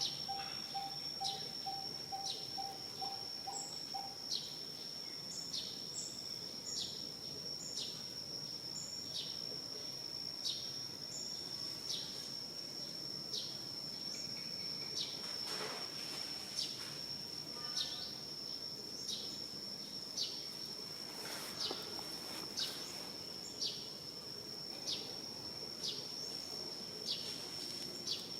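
Steady high-pitched insect drone, with short high chirps that fall in pitch repeated about once a second over it. A fainter, lower pulsing trill stops about four seconds in.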